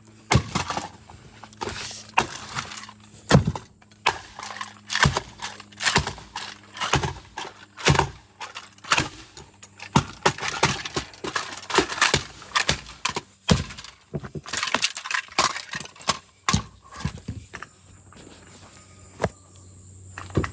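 An alarm clock being smashed by repeated blows: irregular knocks and cracks of breaking parts, about one or two a second, thinning out near the end.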